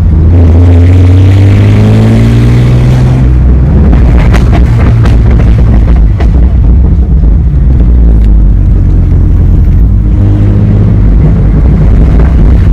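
2004 Ford Mustang exhaust accelerating, its pitch climbing for about three seconds. On lifting off it crackles and pops on the overrun for several seconds, then settles into a steady low drone with a short blip of throttle near the end.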